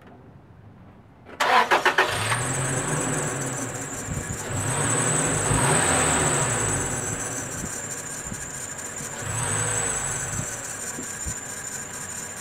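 2010 Toyota Tacoma's 2.7-litre four-cylinder engine cranked by the starter for about half a second, catching and settling into a fast idle that swells slightly twice. A steady high-pitched squeal rides over the engine from the moment it catches: the accessory belt noise this truck has been making.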